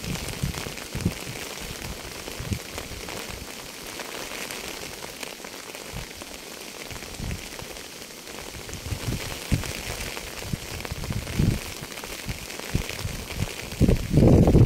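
Steady rain, with a hiss and scattered low thuds of drops striking a surface close by. A louder low rumble comes in near the end.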